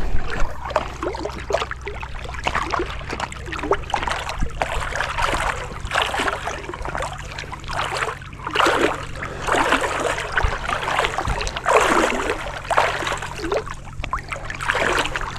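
Water swishing and lapping around a small fishing pontoon boat as it moves along while trolling, in repeated strokes about a second apart.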